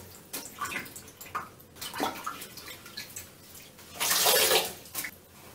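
A scrub sponge sopping up the last water in a toilet bowl: scattered small splashes, swishes and drips, then a louder splash of water for about half a second near four seconds in.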